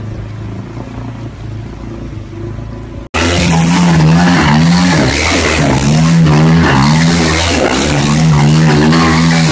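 Yamaha sport quad's engine revving hard, its pitch rising and falling over and over as it spins donuts on asphalt. It comes in on a sudden cut from the quieter, steady hum of a small boat's motor.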